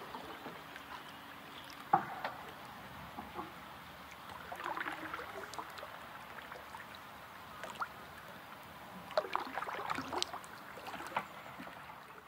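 Kayak paddle strokes in calm pond water: splashing and dripping that come in bursts about every five seconds over a faint steady hiss, with one sharp knock about two seconds in.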